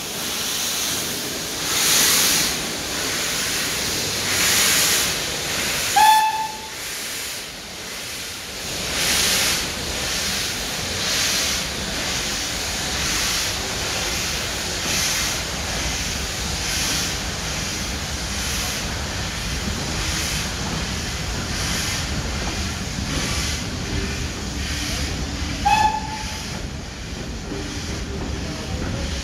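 BR Standard Class 4 tank locomotive pulling away under steam: hissing exhaust chuffs, slow at first and coming quicker as it gathers speed, then the rumble of its coaches rolling past. Two short high notes sound, about six seconds in and near the end.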